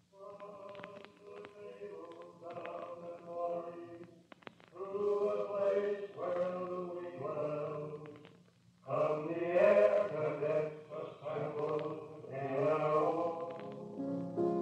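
Wordless choir singing a slow melody in held phrases, over a steady low hum from the old transcription recording.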